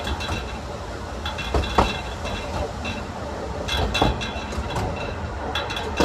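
Narrow-gauge railway coach running along the track: a steady rumble of wheels on rail, broken by several sharp metallic clanks, with a ringing tone around some of them.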